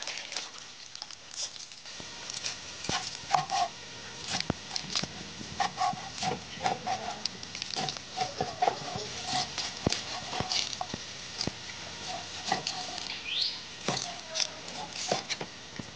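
Cleaver knocking irregularly on a chopping board as a slab of cured pork is sliced, with water splashing in a washing basin at the start. Short animal calls sound in the background throughout.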